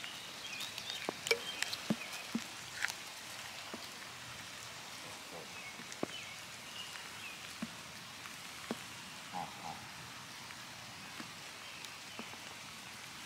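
Quiet lakeside outdoor ambience: a faint steady background with scattered soft clicks and ticks, and a few faint high chirps in the first couple of seconds and again about midway.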